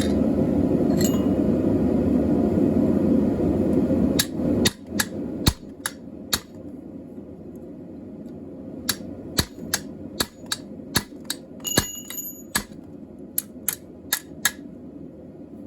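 A steady low rushing noise that cuts off sharply about four and a half seconds in, followed by a run of sharp hammer blows on steel at the anvil, irregularly spaced, with the anvil ringing briefly after one strike near the end.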